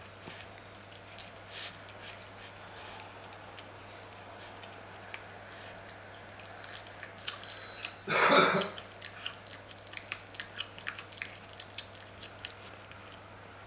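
Sphynx cat chewing raw day-old chicks from a bowl: a run of small crunches and clicks. About eight seconds in, one loud cough of about half a second.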